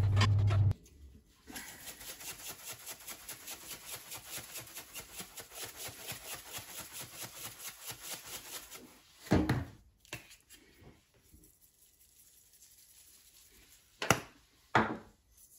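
A loud low hum cuts off under a second in. A pepper grinder is then twisted over a pan of chopped cabbage: a fast, even run of crunchy grinding clicks, about five a second, for about seven seconds. A louder rustle follows about nine seconds in, and two short shakes of a jar of caraway seeds come near the end.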